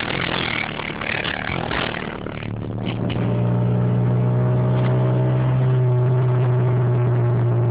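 Honda B16 inline-four engine of a 1995 JDM Integra DC2, rough and noisy at first, then from about three seconds in settling into a steady, even drone at constant revs. The owner reports an exhaust leak at the front.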